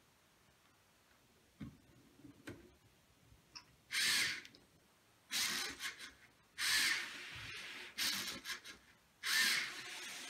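Lego Mindstorms motors whirring in short bursts, about four times, roughly a second and a half apart, as they pull ropes to squeeze a resuscitator bag. A few faint clicks come first.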